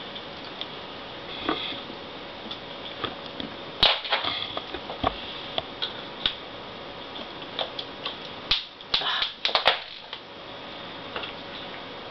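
Small screwdriver and tiny screws clicking and scraping against a laptop's plastic screen housing as the screws are worked in, with irregular light clicks and a quick cluster of clicks and scrapes near the end.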